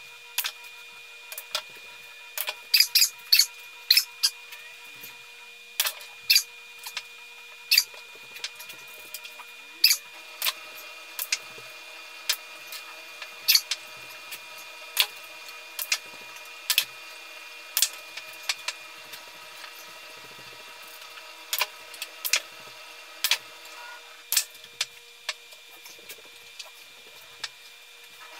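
Pool balls clicking against each other and the cue tip striking the cue ball, many sharp clicks in quick, irregular succession because the play is sped up eightfold, over a faint steady hum.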